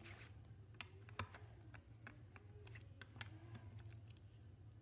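Faint, irregular light clicks and taps of plastic snap-together circuit pieces being handled and fitted onto a plastic base, over a low steady hum.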